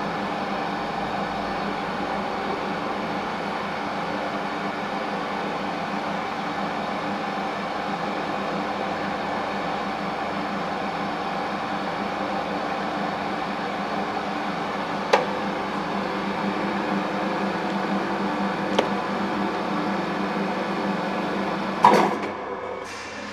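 WMW Fritz Heckert BR 40x1250 radial drilling machine running: a steady hum and gear whine from its drive, with two sharp clicks in the middle. Near the end a loud clunk comes as a control-panel button is pressed, and the running sound begins to fall away.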